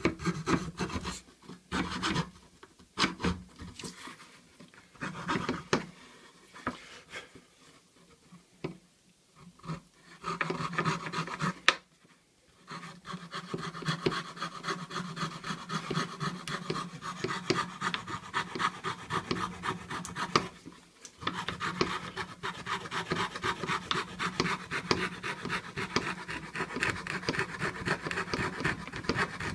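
Hand fretsaw blade cutting through a thin wooden board in rapid, short up-and-down strokes. The sawing starts and stops through the first ten seconds, with a sharp click about twelve seconds in. After that it runs steadily, with a brief pause about two-thirds of the way through.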